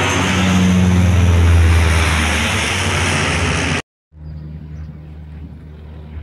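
Canadair amphibious water bomber passing low overhead, its engines loud and steady, swelling about a second and a half in. The sound cuts off abruptly near the middle, and after a short gap a much fainter, steady low drone follows.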